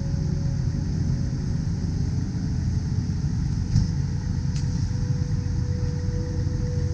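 Steady low rumble with a faint steady hum through it, and two light clicks a little past halfway.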